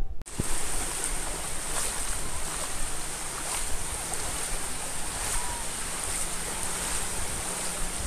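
Gentle surf: small waves washing up and back over a sandy shore, a steady hiss with a soft surge about every couple of seconds. The sound cuts in after a brief dropout just after the start.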